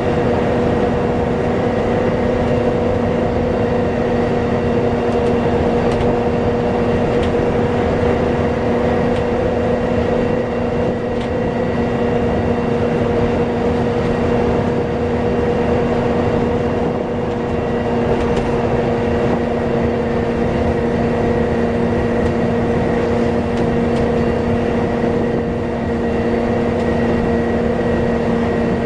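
Volvo B7TL double-decker bus running, with a steady whine holding one unchanging pitch over the running noise.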